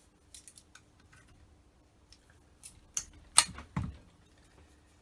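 Small metal clicks and taps of hand tools and parts on a carburettor while the choke is being taken off: a few faint ticks, then three sharper clicks about three to four seconds in.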